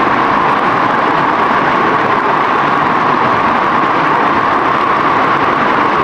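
Rushing river water: a loud, steady rush of noise with no break.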